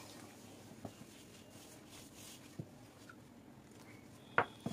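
A hand mixing flour with water in a stainless steel bowl: faint rustling with a couple of light taps, then one sharp knock near the end.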